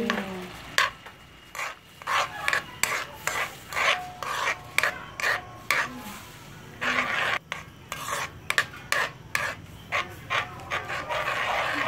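Metal ladle scraping and stirring against a metal wok of simmering pig's-brain broth, in quick irregular strokes with a short pause about halfway through.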